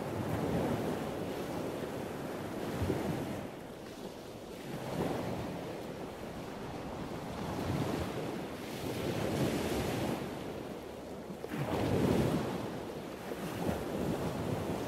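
Wind rushing over the microphone of a moving ride, a steady noisy roar that swells and eases every few seconds.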